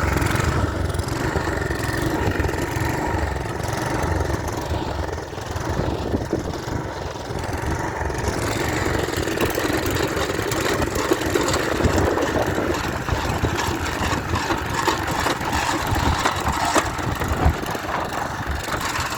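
Small single-cylinder pressure washer engine running steadily but roughly on fuel laced with ATF, with a knock that sounds like a rod knock.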